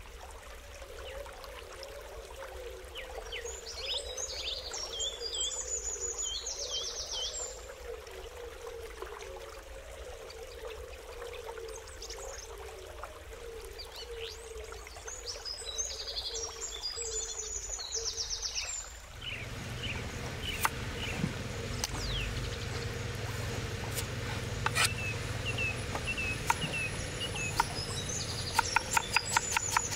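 Outdoor ambience with a bird singing short trills twice over a faint steady hum. About two-thirds in the sound changes abruptly to a fuller rumble with scattered sharp clicks, and near the end a quick run of evenly spaced taps begins.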